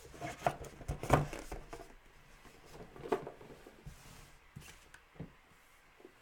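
Trading cards being handled and shuffled, with a handful of light taps and knocks that are busiest in the first half and then thin out.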